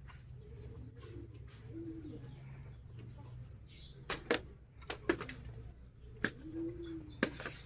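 Doves cooing in short, low phrases, with several sharp clicks or cracks in the second half.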